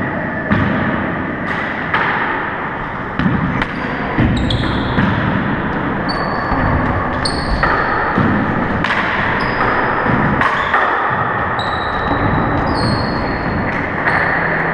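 Rubber handball bouncing in knocks, with short sneaker squeaks on the hardwood floor, ringing in the enclosed walls of the court.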